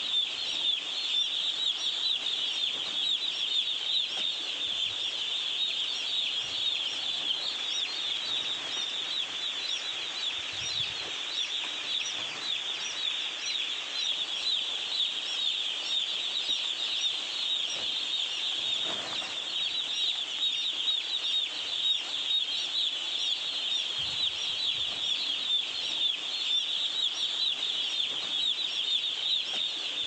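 A large flock of day-old chicks peeping continuously: a dense, steady chorus of high, shrill cheeps.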